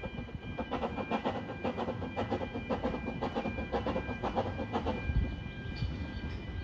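Narrow-gauge steam train running past: a Hunslet 0-4-0 saddle-tank locomotive with its coaches. Its clatter beats about four times a second and fades after about five seconds, over steady high-pitched tones.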